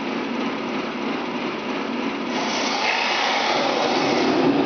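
Electric drive motors and gearboxes of a 1/16 scale Tamiya RC tank whirring steadily as it turns in place on its tracks, growing a little louder and brighter about halfway through.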